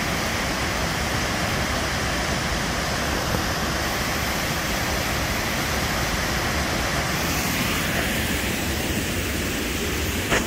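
Waterfall pouring close by: a steady, unbroken rush of falling water.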